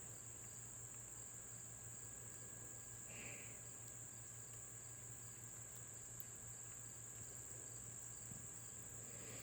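Faint, steady, high-pitched trilling of crickets, with a low hum beneath.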